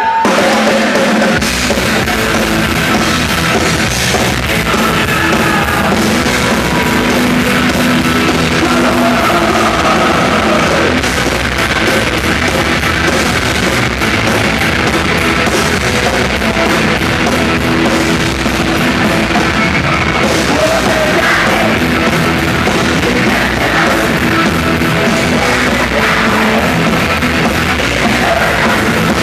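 Live rock band playing loud, with a drum kit driving the song, starting right after stage talk.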